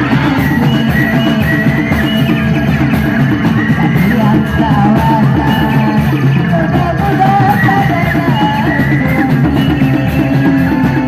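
Loud live band music played through a PA speaker stack, with a fast steady drum beat, electric guitar and a singing voice over it.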